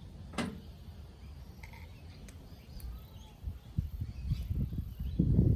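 Irregular low knocking and rumbling from handling as a greased tap spindle is worked back into the tap body, getting louder near the end, with birds chirping faintly in the background.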